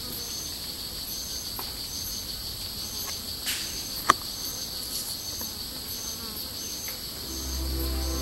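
Cricket-like insects chirping: a steady high trill with a shorter chirp repeating a little faster than once a second, and one sharp click about four seconds in. Music comes in near the end.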